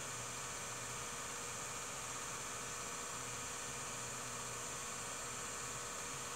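Steady electrical hum with hiss and no other sound, the noise floor of a silent home-movie transfer.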